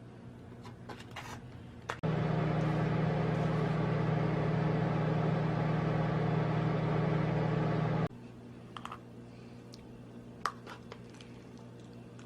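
A small electric kitchen appliance running with a steady motor hum, switched on abruptly about two seconds in and cut off about six seconds later, with a few light clicks before and after.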